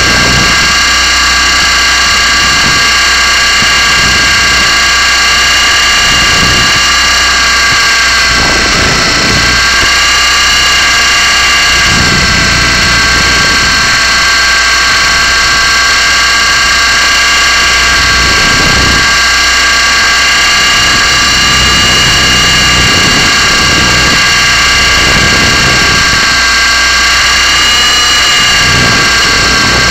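Blade 120SR micro RC helicopter's small electric motors and rotors running at a steady high whine, with a slight dip and rise in pitch near the end and occasional low rumbles underneath.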